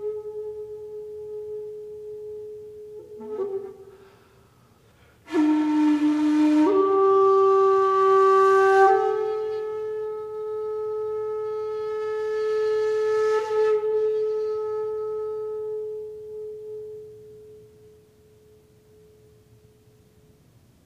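Slow solo flute music of long held notes, breathy on the louder notes, with a short pause about four seconds in and fading out near the end.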